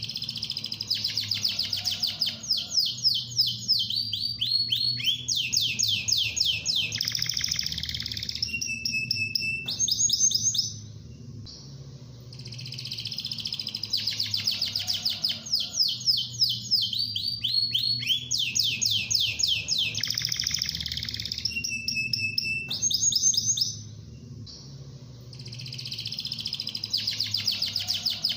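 Domestic canary singing a long, fast song of rapid trills and rolls, with a short pause about 11 seconds in and again near 24 seconds. The same song phrase recurs about every 13 seconds.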